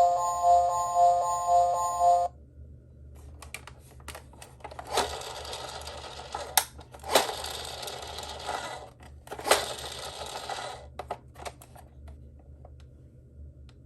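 An electronic toy siren tone pulsing about twice a second cuts off suddenly about two seconds in. Then comes the rattling and clattering of small toy cars rolling and knocking on hard plastic, with several sharp knocks in the middle, tailing off into scattered clicks.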